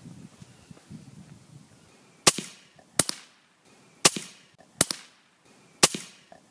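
Suppressed rifle shots: five sharp cracks in quick succession, under a second to about a second apart, each with a short tail. Before them, for about two seconds, there is a faint low rumbling.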